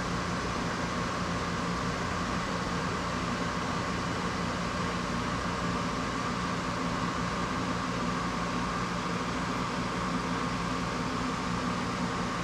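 A steady mechanical hum with a constant pitch and an even hiss over it, not changing at all.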